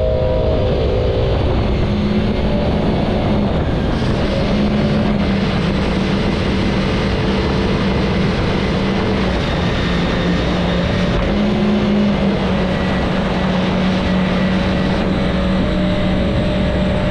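Jet-ski-powered water car's engine running steadily at speed with a steady hum, under loud rushing water and wind noise.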